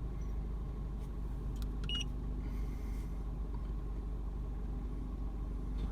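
Suzuki SX4 engine idling steadily with the air conditioning on, while the AC compressor clutch is cycled off by the very low cooling load. A short high beep sounds about two seconds in.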